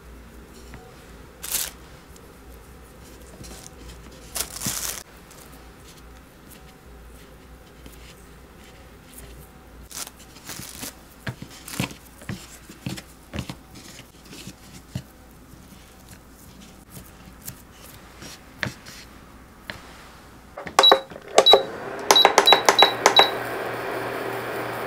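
Soft taps and rustles of floured udon strands being twisted and laid on a wooden cutting board. About 21 seconds in, an induction hob's control panel gives six short beeps as it is switched on and set to heat oil, then the hob starts a steady hum.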